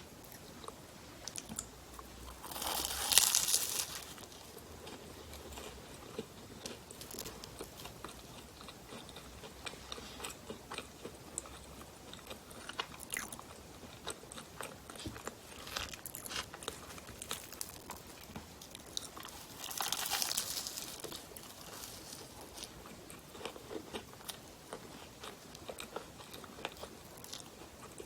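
Close-miked biting and chewing of bakery pastry and bread, with two louder crunchy bites, about three seconds in and about twenty seconds in, and many small chewing clicks between them.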